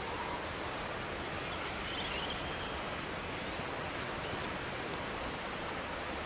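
Steady, even hiss of natural outdoor ambience, with a brief burst of high bird chirping about two seconds in.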